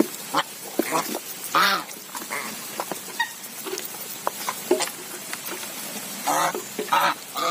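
A flock of white domestic geese feeding from a metal bowl, giving short honking calls now and then, with beaks clicking against the bowl as they eat.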